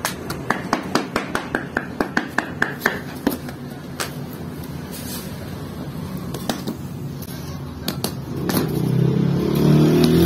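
A quick run of about a dozen light taps, roughly five a second, as flatbread dough is patted and pressed out by hand on a domed metal form. Background music comes in near the end.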